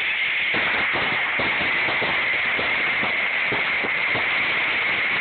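Fireworks hissing and crackling, a steady shower of many small cracks.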